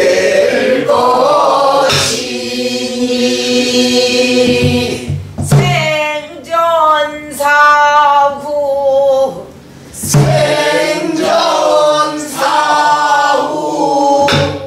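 Pansori singing: a woman's voice in long, wavering held notes, with a few low strokes on a buk barrel drum marking the rhythm.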